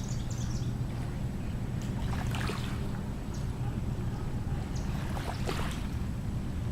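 River water lapping and splashing at the bank in a few short bursts, over a steady low rumble.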